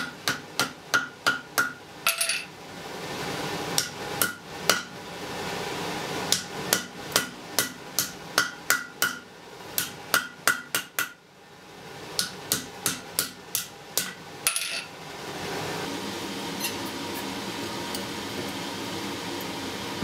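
Blacksmith's hammer striking red-hot iron rod on the horn of an anvil, in quick runs of about three blows a second, each with a short metallic ring, broken by brief pauses. The blows stop about fifteen seconds in, leaving a steady hum.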